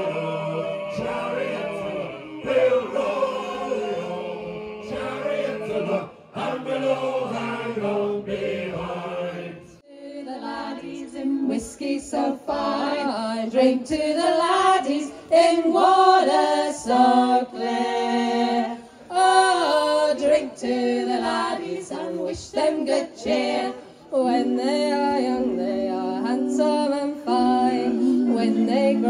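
A group of voices singing together, traditional shanty-festival songs. About ten seconds in the singing breaks off abruptly and another passage of group singing follows.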